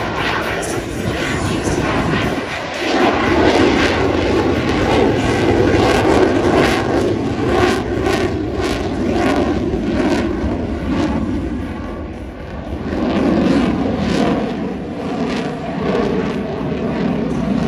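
Jet noise from an F/A-18 Super Hornet's two GE F414 turbofans as it flies past: a loud, rough, crackling rumble that eases briefly about twelve seconds in and then swells again.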